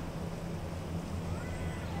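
Hotel ventilation system humming steadily and low. About a second and a half in, a cat meows once, rising then falling in pitch.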